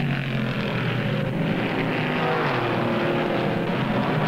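A pack of late-1950s stock car V8 engines running flat out at racing speed, a dense, steady engine drone. The note drops in pitch about halfway through as cars go by.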